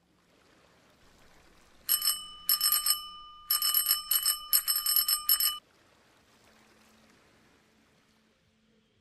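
Bicycle bell rung rapidly in three quick bursts of bright metallic ringing, starting about two seconds in and stopping after about four seconds.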